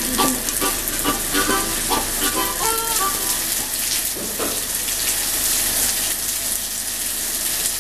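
Heavy rain falling on wet pavement, a steady hiss. For about the first three seconds a melody of short notes plays over it, then fades.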